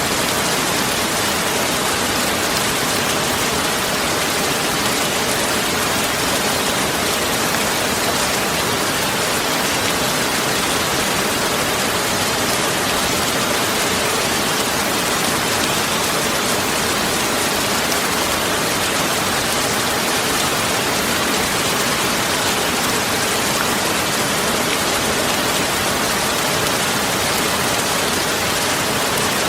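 Steady, even rushing noise that does not change, most of it in the upper range with little low end.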